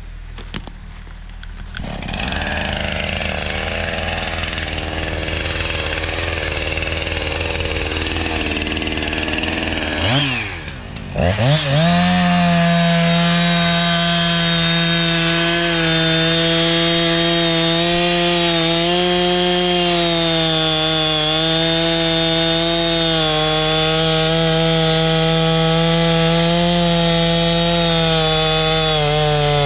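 Gas chainsaw running while bucking a fallen log. About ten seconds in, the throttle drops briefly, then revs back up to a steady high-pitched run that sags a little in pitch now and then as the chain cuts.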